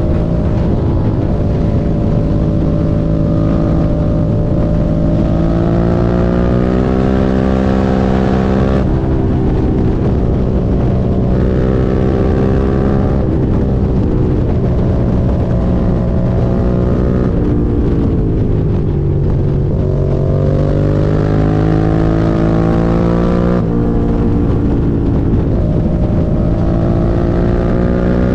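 Suzuki SV650's V-twin engine under way, rising in pitch as it accelerates and dropping abruptly at several gear changes. It winds down for a few seconds around the middle, then pulls up through the gears again.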